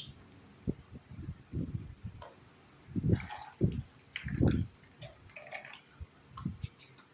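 Small plastic toy kitchen pieces being handled and set down, with scattered light clicks, clinks and soft knocks and some rustling.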